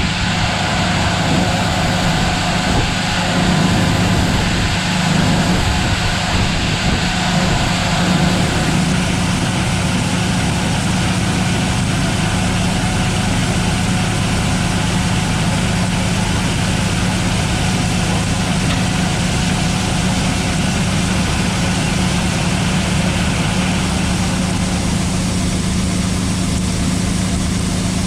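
Large farm machine's diesel engine running steadily, a constant low drone that holds its pitch throughout.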